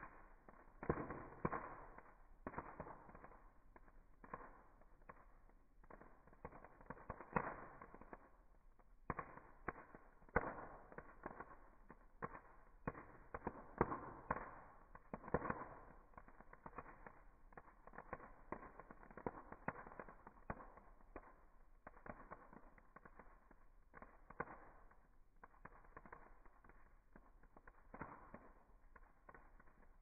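Campfire crackling: irregular sharp pops, several a second, some much louder than others, as the fire throws off sparks.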